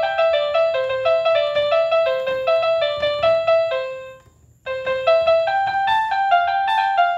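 61-key electric keyboard ("pianika elektrik") playing a telolet bus-horn tune in quick, short notes that hop between a few pitches. The notes break off briefly a little after four seconds in, then start again.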